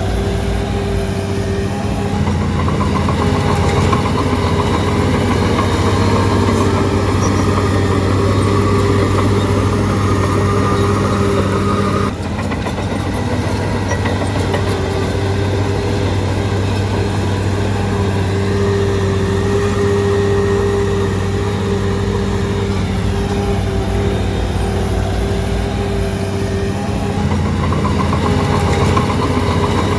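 Shantui DH17C3 crawler bulldozer's diesel engine running steadily as the machine works, with a sudden short drop in level about twelve seconds in.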